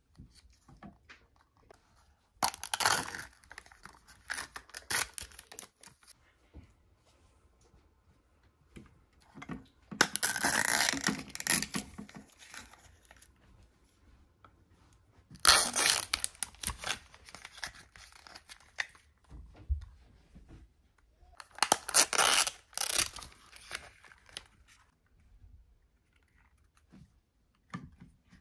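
Thin plastic wrappers from Zuru 5 Surprise Mini Brands pieces being torn open and crinkled by hand, in four separate bursts of rustling with quiet handling between.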